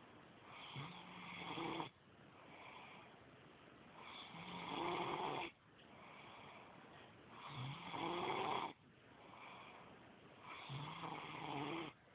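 Snoring: four loud snores about three seconds apart, each swelling over about a second and cutting off abruptly, with quieter breaths between.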